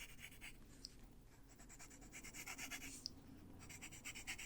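Coloured pencil scratching on the paper of a colouring book in rapid, light back-and-forth shading strokes, faint, with a couple of short pauses.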